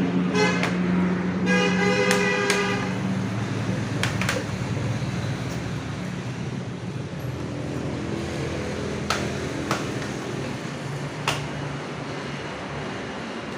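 A passing motor vehicle's engine fades away, with a horn sounding briefly about two seconds in. Later come a few sharp clicks, the plastic clips of a laptop's bottom casing being pried apart.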